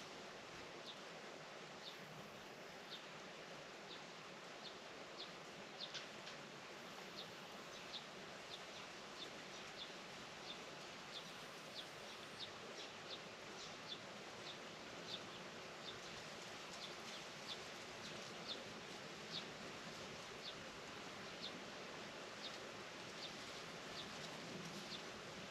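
A small bird chirping over and over, short high chirps about once or twice a second, over a steady faint hiss of outdoor background.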